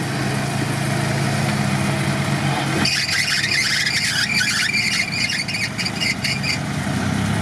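UAZ off-roader's engine running low and steady. From about three seconds in until about six and a half seconds, a high-pitched, irregular noise joins it.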